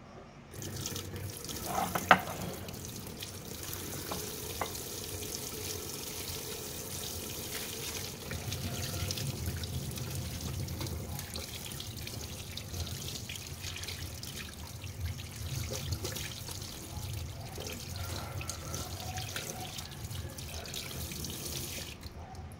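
Kitchen faucet running into a stainless steel sink as a slab of salt-cured pork belly is rinsed under it by hand, the stream splashing off the meat and hands. The water comes on about half a second in and is shut off abruptly near the end, with a sharp knock about two seconds in.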